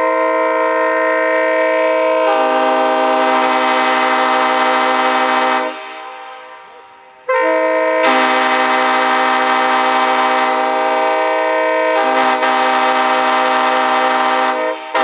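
Train air horns blown on compressed air in two long chord blasts, each about six to seven seconds long, with a short gap between them. Partway into each blast more tones join and the chord fills out.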